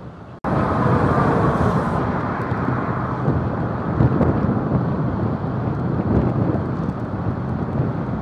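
Wind rushing over a camera on the roof of a moving camper van, with road rumble underneath. It cuts in suddenly and much louder about half a second in, then stays steady.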